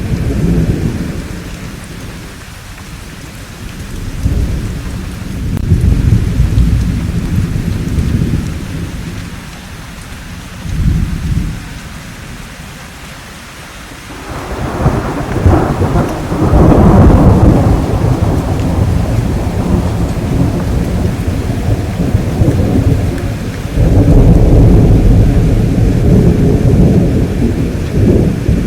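Thunderstorm: steady rain under rolling thunder. Several low rumbles swell and die away; the loudest, about halfway through, reaches higher and lasts several seconds, and another long rumble comes near the end.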